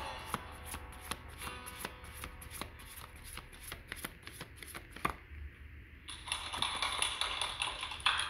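Tarot deck being shuffled by hand: a run of quick card slaps, a short pause about five seconds in, then continuous rustling of cards.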